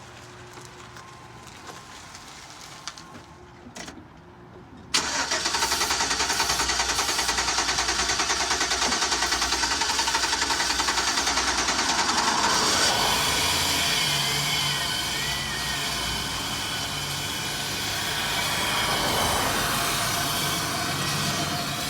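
Chevrolet Express van engine being cranked by the starter on sprayed brake cleaner, because the fuel pump is dead. About five seconds in it starts suddenly, loud and evenly pulsing. The sound changes and steadies about twelve seconds in.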